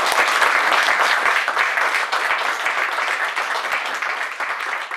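A small seated audience applauding: dense, steady hand-clapping that eases off slightly near the end.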